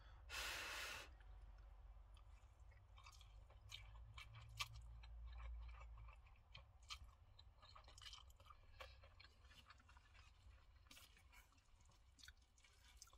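Faint slurping and chewing of hot instant noodles eaten with chopsticks from a steel pot, with a short breathy rush about half a second in and scattered small wet clicks after.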